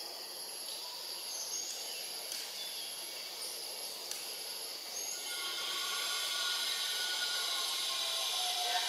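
Steady high-pitched buzzing of forest insects, growing louder about halfway through.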